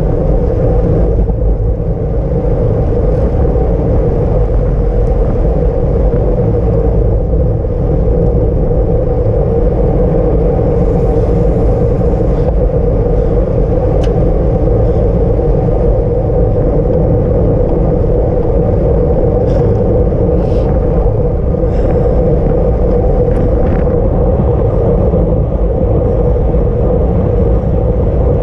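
Steady wind rush and road rumble on the microphone of a camera riding on a racing bicycle, with a few faint clicks in the second half.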